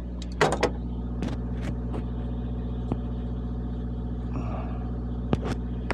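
Sharp metallic clicks and clanks of a wrench on a tight filter being worked loose, the loudest cluster about half a second in, over a steady low hum of an idling engine.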